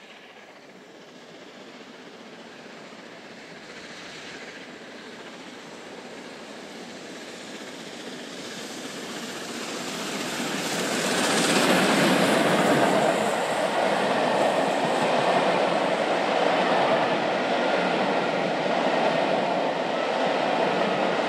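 Three-cylinder A1 Pacific steam locomotive 60163 Tornado approaching and passing through at speed with a train of coaches. It grows steadily louder, peaks as the engine goes by about eleven seconds in, then the coaches carry on rumbling and clattering past.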